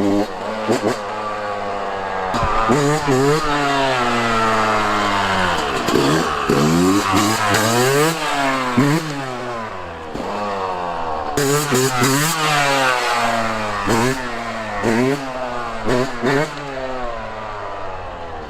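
Yamaha YZ125's two-stroke single-cylinder engine, on a new stock exhaust header and silencer, revving up and down over and over, its pitch climbing and dropping every second or two.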